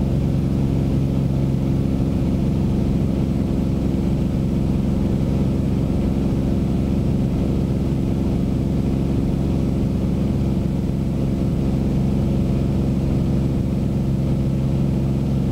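Beechcraft Bonanza's six-cylinder piston engine and propeller running steadily in flight, heard from inside the cabin as an even, unbroken drone.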